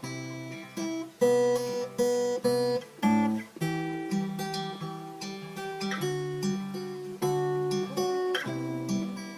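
Music: acoustic guitar strumming chords, with the strongest strokes about a second to three seconds in.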